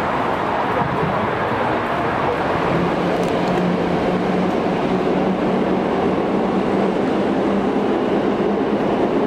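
Steady outdoor city noise, with a low steady hum that comes in a few seconds in and holds.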